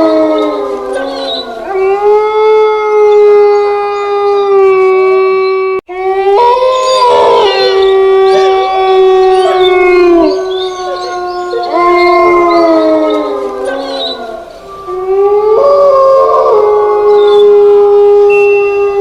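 Gray wolves howling: long, held howls that rise at the start and sink away at the end, several voices overlapping at different pitches. There is a sudden, brief dropout about six seconds in.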